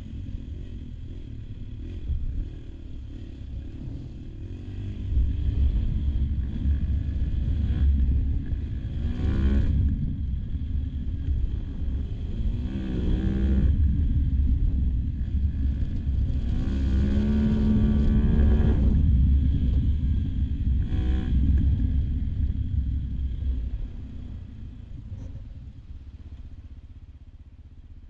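AJP PR7's single-cylinder engine under way on a dirt track, with a heavy low rumble and the engine note rising four times as the rider opens the throttle. It quietens near the end as the bike slows.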